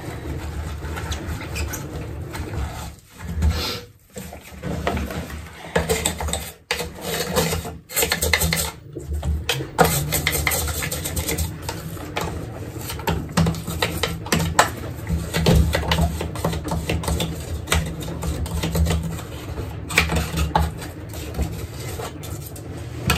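Scrubbing and scraping inside the plastic base of a Xiaomi air humidifier with a cloth and a small brush, in irregular strokes with occasional knocks of plastic: limescale deposits being worked off.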